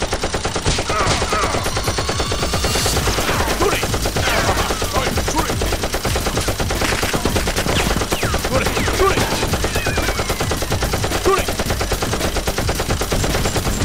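Automatic gunfire sound effect dubbed over Nerf blasters: rapid shots in continuous bursts, many a second.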